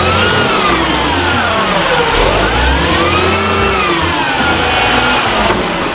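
Front-loader garbage truck lifting a dumpster over its cab, its diesel engine revving to drive the hydraulic lift arms. The pitch rises and falls twice.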